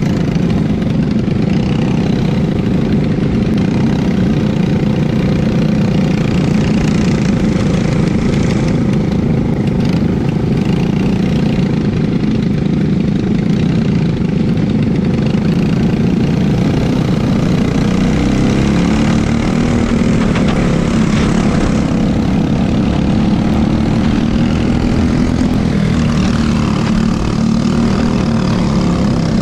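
Briggs & Stratton LO206 single-cylinder four-stroke kart engines running close together at low speed, heard from on board a kart. Their pitch rises partway through as the karts speed up.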